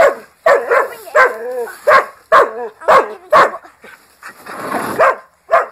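Dog barking in a string of sharp barks, about two a second, with wavering whining cries between them, a pause about four seconds in, then one more bark near the end.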